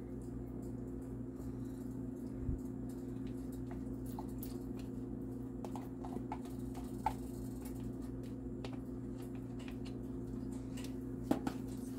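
Silicone spatula scooping diced tomatoes out of a plastic container into a pan of cheese sauce and stirring: a few light taps and clicks of the spatula against container and pan, over a steady low hum.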